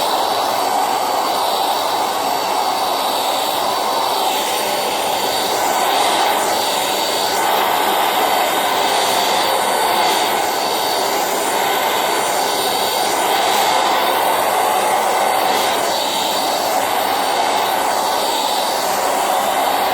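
Silvercrest anti-dust-mite handheld mattress vacuum running steadily at suction, its high whine rising and falling slightly as it is worked over a mattress.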